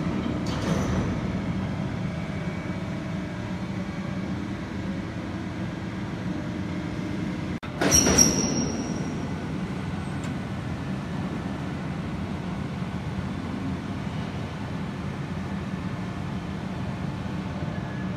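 Steady low hum of a CNC hydraulic press brake's running pump motor, with a momentary break and then a short louder noise about eight seconds in.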